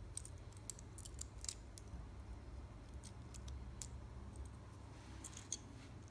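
Faint, scattered small plastic clicks and ticks as the white plastic shell of a Cheerson CX-10 nano quadcopter is worked loose and pulled off its circuit board and motors, with a cluster of clicks in the first two seconds and another about five seconds in.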